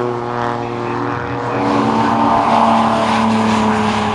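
Jaguar XJS racing car driving past at speed, its engine growing loudest from about halfway through as it comes close.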